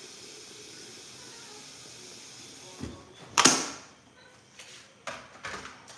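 A steady stovetop hiss cuts off about three seconds in. Then comes a knock and a loud, short clatter of a cooking pot being taken off the gas stove, followed by a few light knocks.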